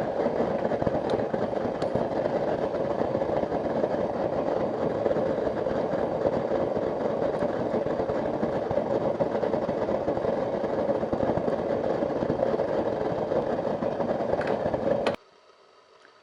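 Steady roar of blacksmith shop equipment with a few faint metallic clinks; it cuts off abruptly about a second before the end.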